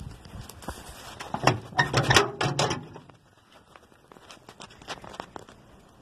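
Metal clanking and knocking as the wood furnace's firebox door is unlatched and pulled open, loudest about two seconds in. After that come faint scattered crackles.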